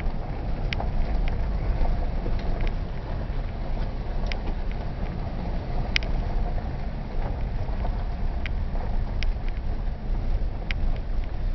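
Vehicle driving on a gravel farm track, heard from inside the cab: a steady low rumble of engine and tyres, with scattered light clicks and knocks.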